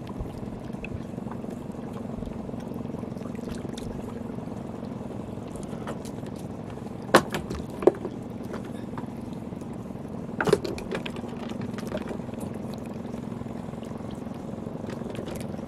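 Water sloshing and trickling around a small wooden boat over a steady low engine hum, with a few sharp knocks about seven, eight and ten and a half seconds in.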